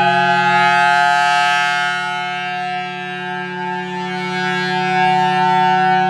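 Federal Signal Thunderbolt 1000T outdoor warning siren sounding a steady full-alert tone. It swells and fades as the rotating horn turns past. The siren is reverse-wired, so its blower runs backwards.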